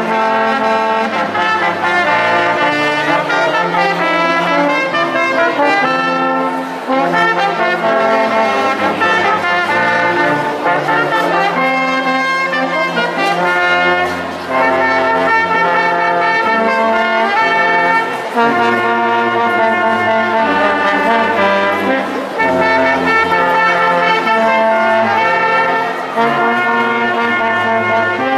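Small brass ensemble of two trumpets, a trombone and an upright valved horn playing a tune in harmony, held notes moving in steps over a low bass line, with short breaks between phrases.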